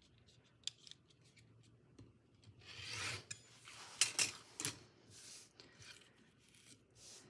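Rotary cutter slicing through heavy woven fabric on a cutting mat: a rasping cut about three seconds in, followed by a few sharp clicks and rustles as the fabric and tools are handled.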